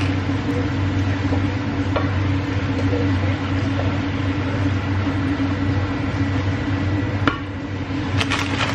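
Steady hum of a running kitchen appliance motor, with a few light clicks and a short clatter of kitchenware near the end.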